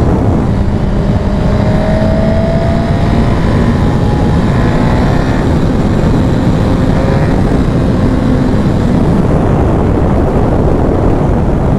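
Suzuki GSX-R1000 sport bike's inline-four engine running at highway speed, heard under a steady heavy rush of wind noise, its pitch rising slightly about two to three seconds in as the bike accelerates.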